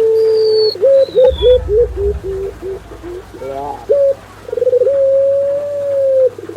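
Doves cooing: a long held coo, then a run of short quick rolling coo notes, then another long held coo near the end. A brief high thin whistle from a small bird comes about a second in, and a low rumble sits under the first run of notes.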